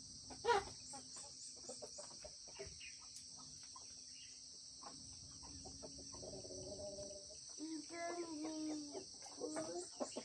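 Insects chirring steadily in a high, even drone. A sharp click comes about half a second in, and a few pitched calls sound in the second half.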